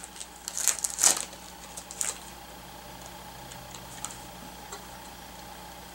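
Light clicks and crinkles of a small plastic Shopkins blind basket being turned over in the hands, clustered in the first two seconds, then a few faint ticks.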